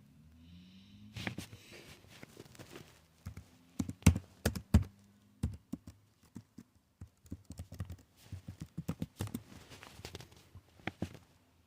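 A series of irregular sharp clicks and taps, the loudest coming about four and five seconds in.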